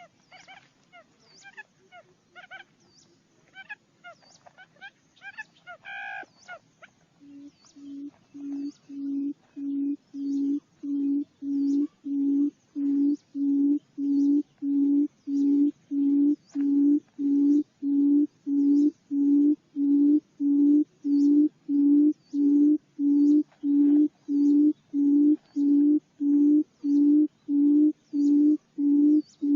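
Barred buttonquail's booming call: a long, even series of low hoots, about one and a half a second, that starts about seven seconds in and grows louder before holding steady. Before it come a few short high chirps from other birds.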